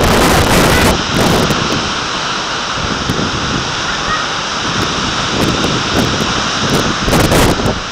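Strong gusty wind buffeting the microphone, a loud rushing noise that swells in the first second and again near the end.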